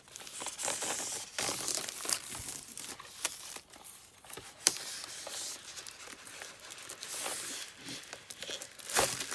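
Clear plastic protective film crinkling and rustling as it is peeled by hand off a tin of pastel pencils, with many small crackles and one sharper snap a little past halfway.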